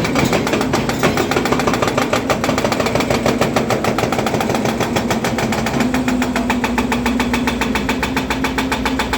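Volvo EC300DL excavator's diesel engine running steadily under the operator's control, with a fast, even chugging and a steady hum that rises slightly in pitch about six seconds in.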